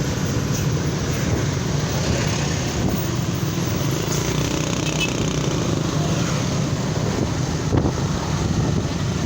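Steady road traffic noise from moving vehicles, an even rumble of engines and tyres with no horn tune standing out.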